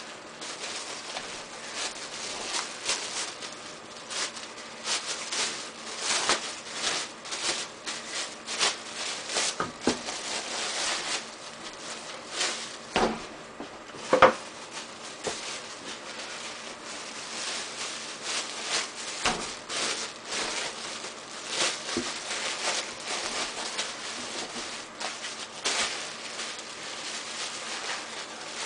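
Thin plastic bags crinkling and rustling as baked loaves are slid in and wrapped tight to squeeze out the air. A single sharp knock stands out about halfway through.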